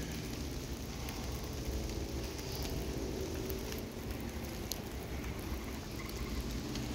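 Steady rain falling in woodland, with scattered raindrops ticking, over a low steady rumble.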